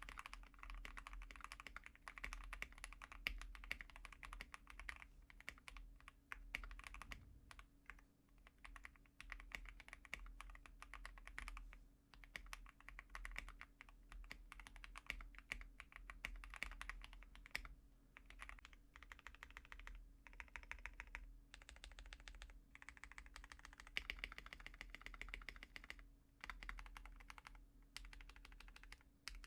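Continuous fast typing on a custom GMMK Pro mechanical keyboard with lubed, filmed Tangerine linear switches on a polycarbonate plate and GMK keycaps, giving a dense run of keystrokes with short pauses between bursts.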